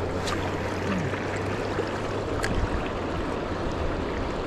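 River water rushing steadily, with a couple of faint clicks, about a quarter second in and about two and a half seconds in.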